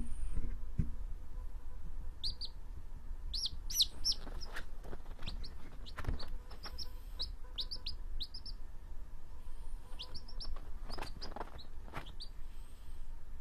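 A baby chicken chick peeping: short, high chirps in quick clusters, starting about two seconds in.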